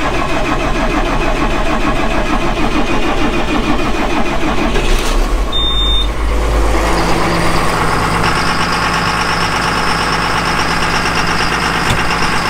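John Deere 7230 tractor's six-cylinder diesel idling just after a cold start, with the knocking clatter it has when cold. About halfway through the clatter eases and the engine settles into a steadier hum.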